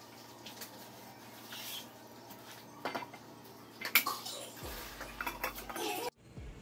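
A non-stick appam pan knocking and clanking as it is set back down on a gas stove's burner grate, the loudest clank about four seconds in, followed by the clinks of a glass lid being placed on the pan.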